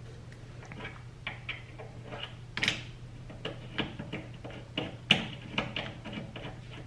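Irregular small clicks and taps, about two or three a second, of an AN fuel-line fitting being handled and threaded by hand onto the fuel pressure regulator, over a low steady hum.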